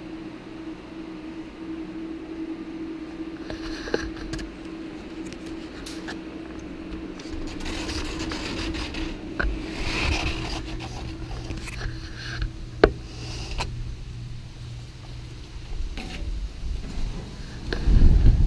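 Steady indoor hum with a held tone, under rustling handling noise and two sharp knocks, the second one the loudest. Near the end a heavy low rumble sets in, like wind buffeting the microphone.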